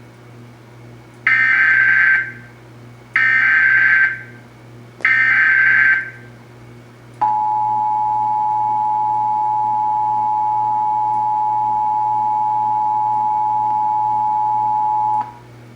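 Emergency Alert System tones: three bursts of SAME header data, each about a second long, warbling between two high tones, then the EAS two-tone attention signal (853 and 960 Hz) held steady for about eight seconds before it cuts off.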